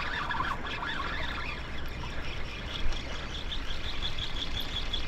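Fishing reel ticking in a fast, even rhythm of about four clicks a second while a hooked Spanish mackerel fights on the line.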